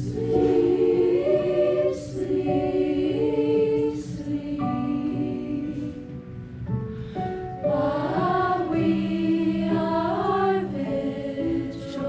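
Student choir singing a Christmas or holiday song together, in phrases of held and sliding notes with short breaks between them.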